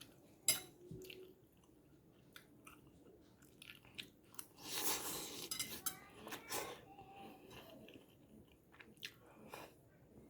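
A person eating fried noodles: chewing, with scattered sharp clicks of cutlery against a plate and a roughly one-second stretch of louder noise a little before the middle.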